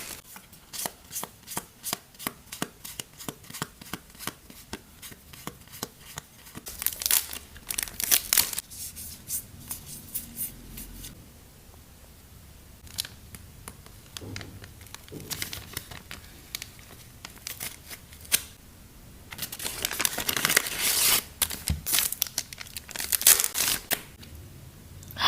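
Packaging being torn open and crinkled by hand: a dense run of crackles and rips, a quieter stretch in the middle, then more tearing and crinkling near the end.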